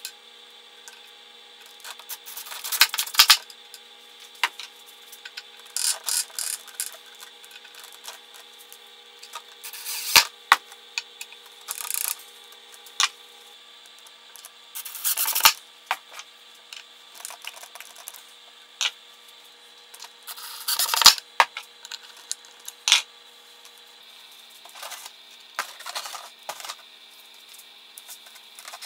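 Irregular rubbing and scraping on a wooden end-grain cutting board: about a dozen short bursts of a second or less, some with sharp knocks, as hands handle the board, fit its rubber feet and wipe it with a cloth. A faint steady hum runs underneath.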